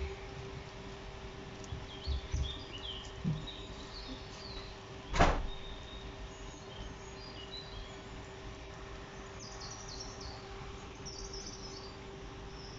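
Wheat-flour bhaturas deep-frying in hot oil, a steady sizzle, with a steady hum underneath. About five seconds in a slotted spatula knocks once sharply against the pan, and a few soft thumps come before it as the spatula works the bhaturas.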